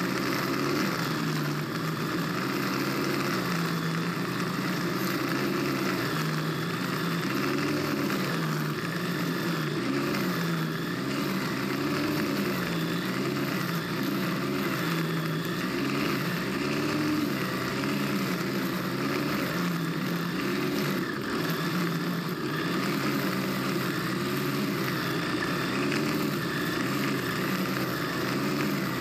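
Stihl FS90R string trimmer's small four-stroke engine running hard while its line head cuts tall grass. Its pitch rises and falls every second or two as the load and throttle change.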